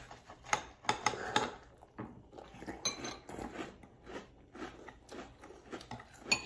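Two people eating crunchy cereal in milk with metal spoons: irregular crunching and chewing, with spoons clinking and scraping against ceramic bowls, and a short ringing clink a little before the midpoint.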